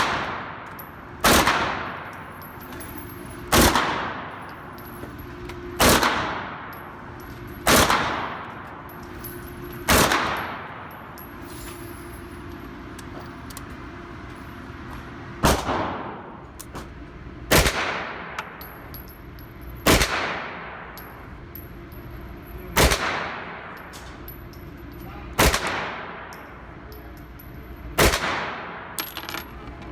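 Single gunshots at a shooting range, about a dozen of them roughly two seconds apart, each followed by a short echo, with a pause of several seconds midway.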